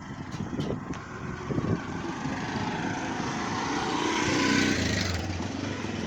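A motor vehicle passing along the road, growing louder to a peak about four and a half seconds in and then easing off.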